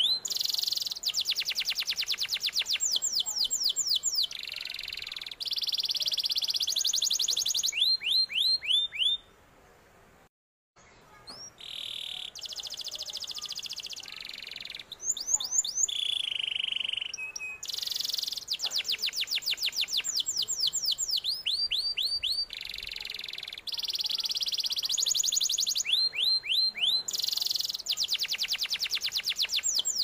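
Domestic canary singing: a long song of rapid rolling trills and runs of quick downward-sweeping whistled notes, with a short break about ten seconds in.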